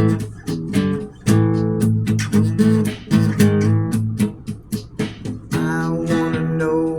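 Acoustic guitar strumming chords in a slow blues-rock song.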